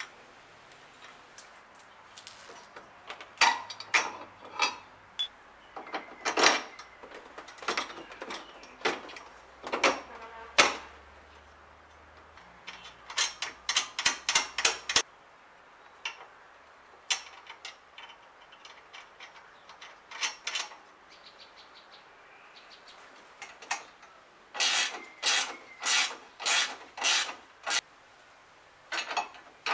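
Hand tools working the bolts of a scooter's side-wheel kit frame: scattered metallic clicks and clinks of wrench on bolt and steel bracket. Near the end comes a run of even sharp clicks, about two a second.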